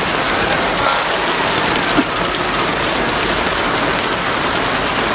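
Heavy rain falling steadily, with one short knock about two seconds in.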